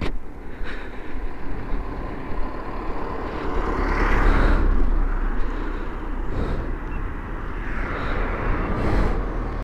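Cars passing close by on the road, one swelling and fading about four seconds in and another near the end, over a steady low rumble of wind on the microphone.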